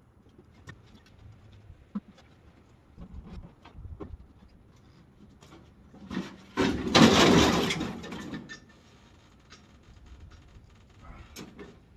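A motorcycle being dropped onto a trailer deck: a sudden loud crash and clatter about halfway through that lasts about two seconds, after a run of light knocks and clunks as it is handled.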